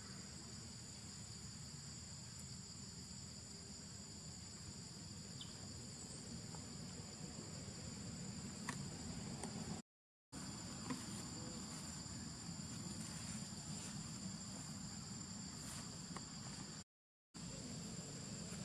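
Steady high-pitched chorus of insects, crickets or cicadas, over a low background rumble. The sound cuts out completely for a moment twice, once about halfway and once near the end.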